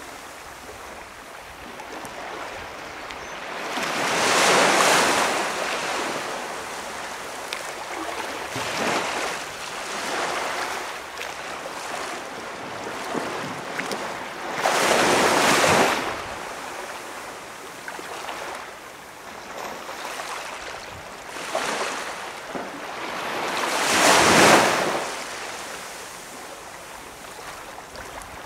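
Small waves breaking and washing up on a quiet beach, in slow surges about every ten seconds with smaller laps between.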